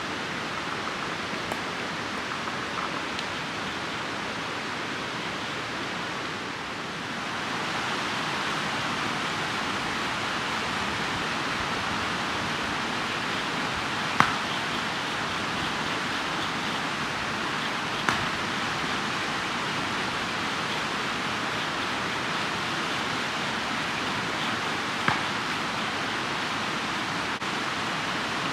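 A steady rushing noise that grows a little louder about seven seconds in, with three sharp pops or cracks, the loudest about halfway through.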